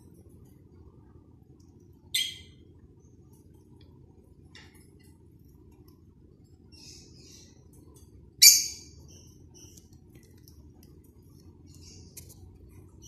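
African grey parrot giving two short, sharp, high-pitched squawks, about two seconds in and again past the middle, the second the louder, with a few faint chirps and clicks between them.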